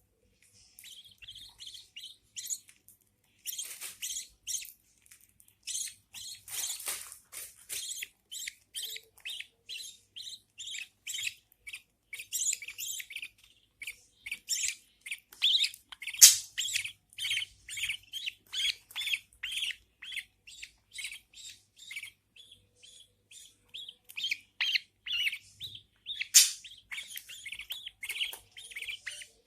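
Newborn budgerigar chicks cheeping in the nest, a rapid run of short, high peeps a few times a second with a couple of louder ones: the chicks' begging calls for food from their mother.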